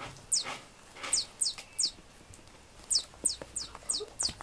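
Battery-powered squeaking mouse on a cat-teaser rod (Platz Chu~! Touch), giving a string of short, high, falling electronic mouse squeaks in quick runs. Its vibration sensor sets them off as the toy is jiggled and bounced, with a few light knocks of the toy against the floor.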